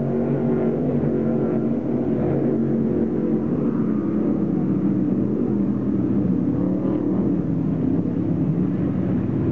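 Offshore racing powerboats running at racing speed as they pass close by. Several engine tones blend into one steady, deep drone, with small rises and falls in pitch later on.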